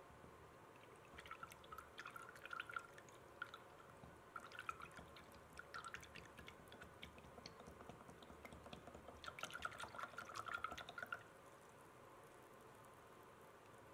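A wooden stick stirring malt syrup into water in a plastic measuring cup: faint liquid swishing and light ticks of the stick against the cup, in a few bursts, the last stopping about eleven seconds in.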